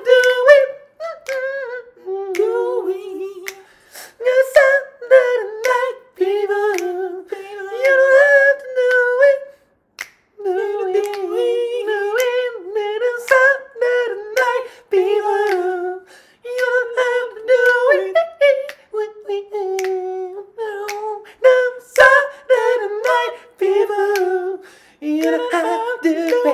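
Unaccompanied singing in a high voice, phrase after phrase, with finger snaps clicking along with it.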